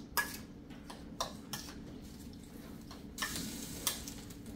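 Serving spoon clicking and scraping against a stainless steel mixing bowl as shrimp are tossed with lemon pepper: a few separate clicks and a short scrape a little past halfway.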